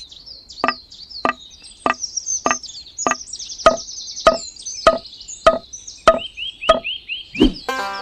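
A steady series of sharp, slightly ringing knocks, about one every 0.6 seconds and each the same, with high chirping over them.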